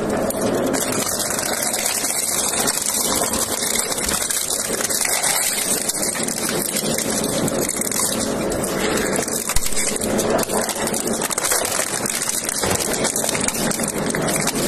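Industrial crushing machine grinding up scrap: a dense, steady crunching full of small cracks and snaps, with one sharper crack about ten seconds in.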